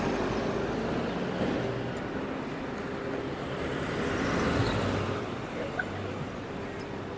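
Street traffic at a city intersection: cars driving past, with one small SUV passing close about four seconds in, its engine and tyre noise swelling and then fading.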